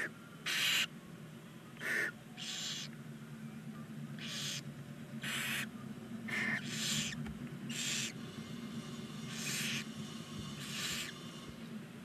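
Barn owl chicks giving short, raspy hissing calls, the nestlings' begging "snore", about ten times at irregular intervals. A steady low hum runs underneath.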